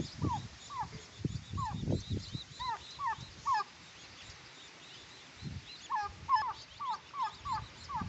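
Turkey poults peeping: short, thin peeps that each slide down in pitch, repeated in loose runs with a lull in the middle and a quicker run near the end. Low rustling thuds sound underneath now and then.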